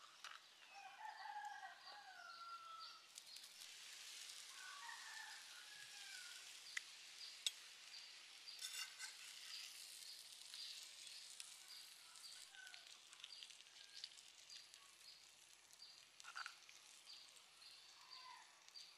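Quiet outdoor ambience: birds calling with short warbling, gliding cries in the first few seconds and again briefly later, over a regular high ticking of about two a second. A soft hiss rises for several seconds in the middle, with a couple of sharp clicks.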